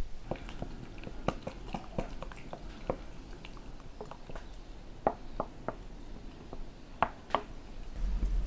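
A utensil clicking and tapping against a glass bowl while batter is stirred, in irregular bursts of light knocks with soft wet squishing between them.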